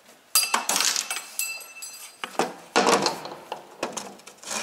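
Metal clinking and clattering as a Scania DC12 piston and connecting rod are handled and worked with a tool, in several bunches of sharp knocks, one with a short ringing tone about a second and a half in.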